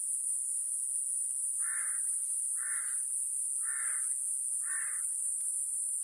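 A crow cawing four times, about a second apart, over the steady high-pitched buzz of Iwasaki grass cicadas (Mogannia minuta) singing.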